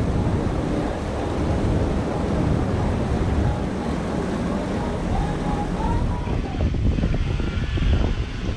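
Wind buffeting the microphone on the deck of a moving cruise boat, over the boat's low rumble and the wash of water along its hull. The wind turns gustier near the end.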